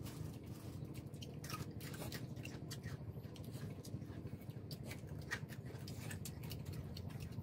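Boiled shrimp being peeled and chewed: a run of small, irregular crackling clicks of shell and mouth sounds, over a steady low rumble.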